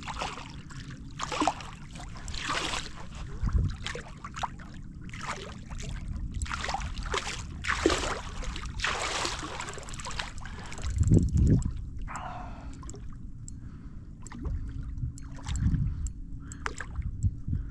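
Water splashing and sloshing around a fishing kayak, in irregular bursts, with a few dull thumps, the loudest about eleven seconds in.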